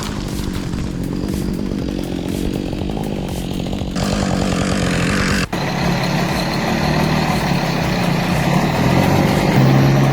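An engine running steadily, its pitch holding, with an abrupt change in sound about four seconds in and a momentary dropout about five and a half seconds in.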